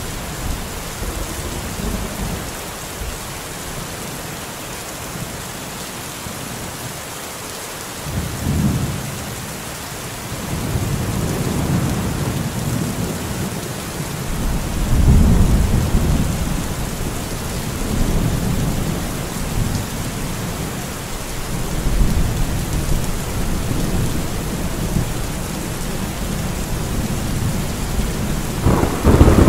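Steady rain hissing, with thunder rolling in from about a quarter of the way in. The rumbles are loudest around the middle, and a fresh, sharper peal breaks in near the end.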